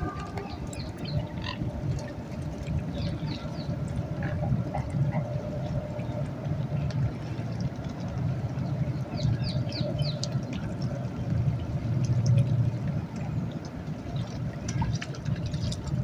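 Riverside outdoor ambience: a steady low rumble with faint, scattered high chirps throughout.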